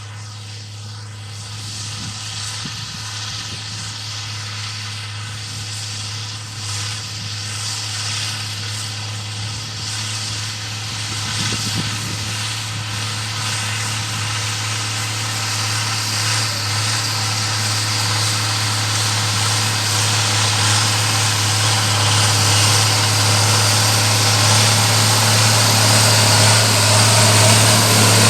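Engine of an IHC 1246 tractor, a six-cylinder diesel modified to about 170 hp, running steadily and growing steadily louder.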